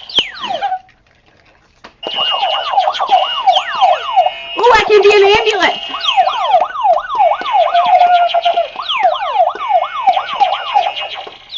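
Electronic toy push-buttons (Lights and Sounds Buzzers) playing siren-like sound effects: a repeating falling wail about twice a second, with other electronic effects overlapping, after a brief pause about a second in.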